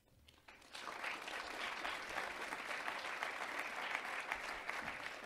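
Audience applauding: many hands clapping, starting about a second in and holding steady.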